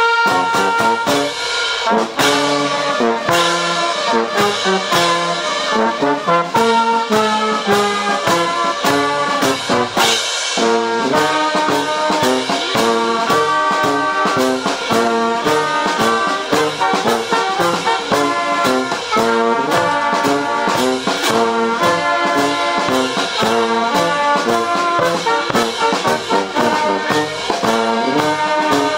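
A Danish guard brass band of trumpets, tuba and other brass, with a drum, playing a tune in steady rhythm.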